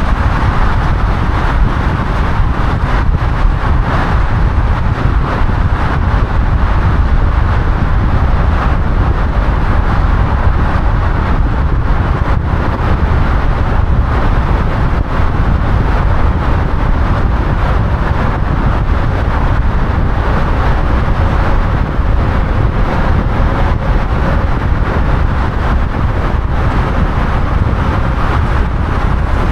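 Steady road noise of a car being driven: a constant low rumble with a rushing noise above it.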